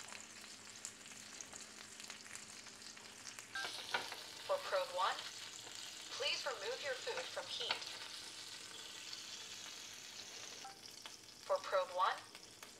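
Beef burger patty sizzling in a hot ridged grill pan on the stovetop, a steady frying hiss. The sizzle fades out a couple of seconds before the end, as the patty is taken off the heat.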